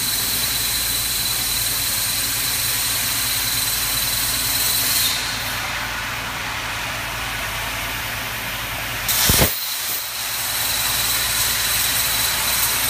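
Robotic plasma cutting torch cutting metal: a steady hiss with a thin high whine. About five seconds in the arc stops and only a softer air hiss carries on. Just after nine seconds a loud short burst comes as the torch restarts, and the cutting hiss and whine resume.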